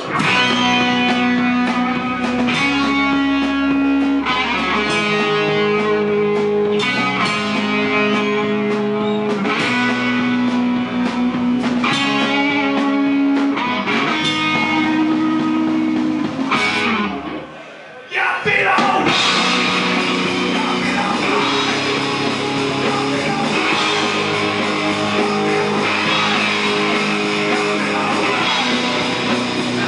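Live rock band playing: electric guitars, bass guitar and drums, with a riff of held chords changing about once a second. A little over halfway through the band breaks off for a moment, then crashes back in fuller and denser.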